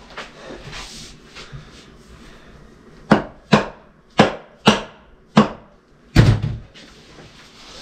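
Six sharp knocks of a mallet on the aluminium case of a Kenne Bell twin-screw supercharger, struck to break the case halves apart. The blows start about three seconds in and come roughly half a second apart, and the last one is the heaviest.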